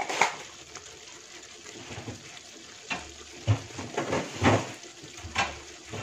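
Thick blended chili paste simmering in oil in a steel wok, with bubbles bursting in irregular short pops, about half a dozen of them.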